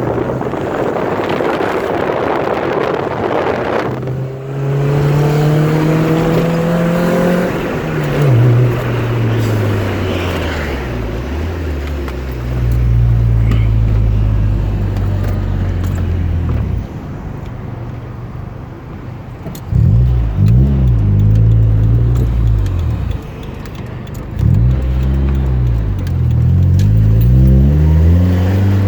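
Honda D16Y1 1.6-litre four-cylinder engine running and revving, its pitch rising and falling several times, on freshly replaced connecting rod bearings with no rod knock.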